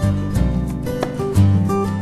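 Music track with guitar over a bass line and a steady beat.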